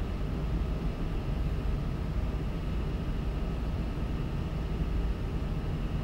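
Steady low room rumble with a faint constant hum, the background noise of the lecture room.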